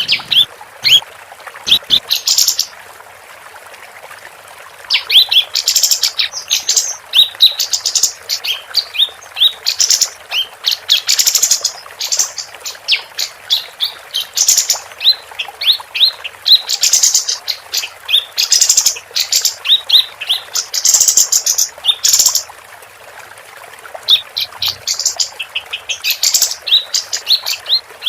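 Female kapas tembak, a bulbul, singing a fast, busy chirping song: rapid runs of short high notes and trills in phrases, broken by two brief pauses.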